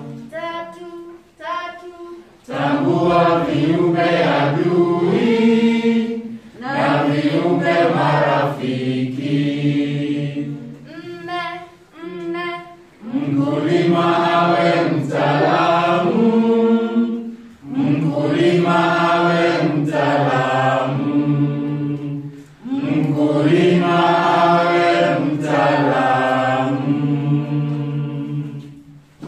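A group of voices singing an anthem in Swahili, in sung phrases of several seconds with short breaks between them.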